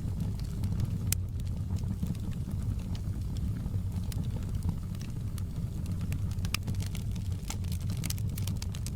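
Wood fire burning in a fireplace: a steady low roar of flame with frequent sharp, irregular crackles and pops, a few louder snaps among them.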